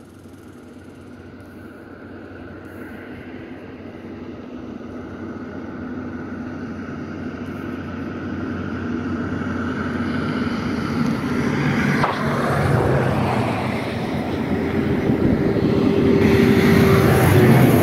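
An engine drawing closer, its steady hum growing louder and peaking near the end.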